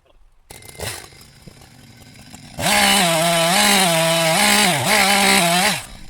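Two-stroke chainsaw starting to run about half a second in, then revved hard to a high, steady engine note for about three seconds, dipping briefly once, before the throttle is let off.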